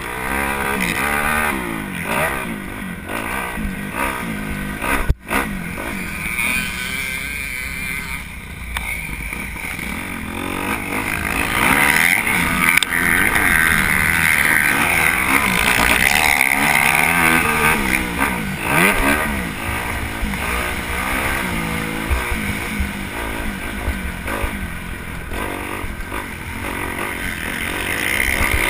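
Motocross dirt bike engine revving up and down over and over as it is ridden round the track, with wind rumble on the microphone. The sound cuts out for an instant about five seconds in.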